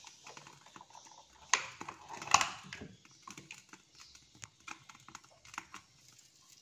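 Cooking oil heating in a wok, giving off scattered faint crackles and pops. Two louder sharp sounds stand out about one and a half and two and a half seconds in.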